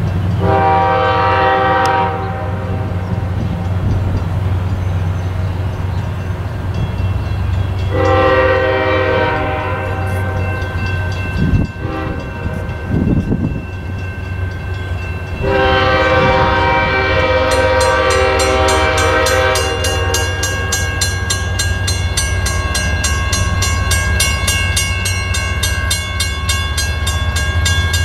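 Iowa Interstate freight locomotive's air horn sounding three chords, the last one the longest, over the steady low rumble of its diesel engine.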